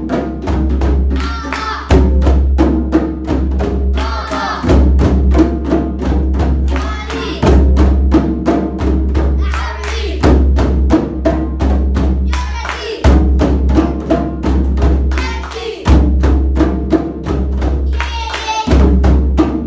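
A group of children clapping their hands in a steady rhythm, about three claps a second, with voices chanting short phrases every few seconds.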